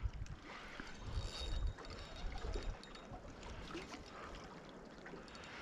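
Small waves lapping against a boat's hull, with wind buffeting the microphone in low thumps during the first two seconds.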